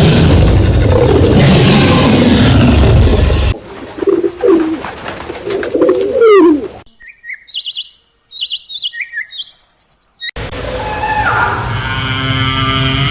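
A string of separate animal-sound clips cut one after another. A loud, noisy sound fills the first three and a half seconds, followed by lower gliding calls, then a run of short high bird chirps, and finally a steadier pitched animal call with several tones.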